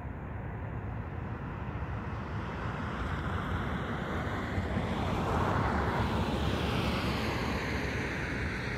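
A passing vehicle: its noise swells to a peak about five seconds in and then slowly fades, over a steady low rumble.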